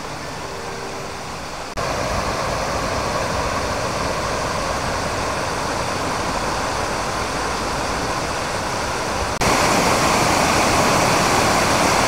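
Rushing water of Nabegataki, a wide, low curtain waterfall, heard as a steady hiss. It steps up louder about two seconds in and again near the end.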